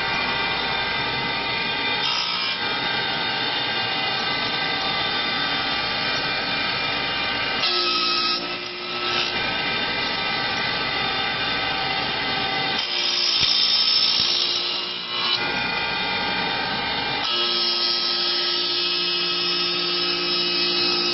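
Woodmaster four-axis, four-cutter CNC wood lathe cutting a chair or table leg: the spindle motors whine steadily over the rasp of the cutters in the wood. The pitch and texture shift every few seconds as the cutting pass changes.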